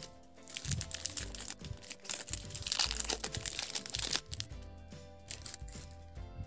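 Clear plastic candy wrapper crinkling as it is peeled off a chocolate-coated candy on a stick, loudest a little before the middle and stopping about four seconds in, over background music.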